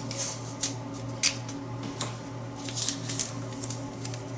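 Blue painter's tape being peeled off its roll and pressed along a drawer edge: short crackling, ripping pulls, several in a row, over a steady low hum.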